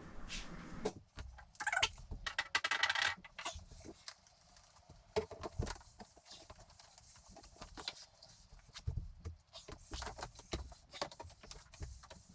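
Small hard decor pieces being handled and set down: scattered light clicks, clinks and knocks, with a few ringing clinks about two to three seconds in.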